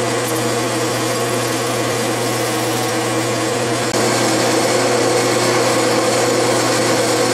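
Metal lathe running with a steady motor hum while a boring bar takes a light finishing pass, a few thousandths, inside a 3D-printed plastic ring. The hum carries on unbroken and gets slightly louder about four seconds in.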